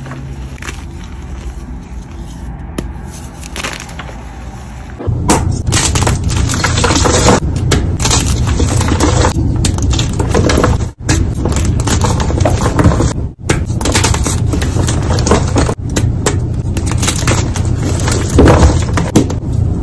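Hands crumbling and crushing dyed gym chalk: a quieter, soft crumbling of powdery chalk, then about five seconds in, loud dense crunching and crackling as chalk blocks are squeezed and broken apart.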